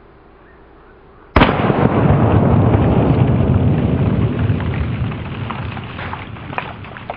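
A single 12-gauge pump-action shotgun blast (Remington 870 firing birdshot) about a second and a half in, followed by a long low rumble that slowly fades over several seconds.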